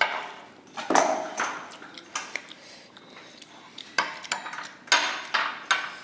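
A spoon clinking and scraping against a dish, in several separate strikes with a short ring after each.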